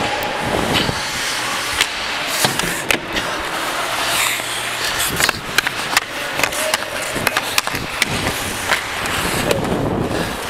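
Hockey skate blades scraping and carving on ice during play, with repeated sharp clacks of sticks and puck.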